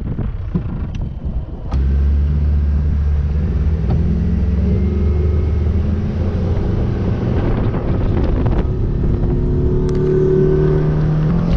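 Boat's outboard motor running under way, cutting in loudly about two seconds in, with its pitch shifting as the throttle changes near the end.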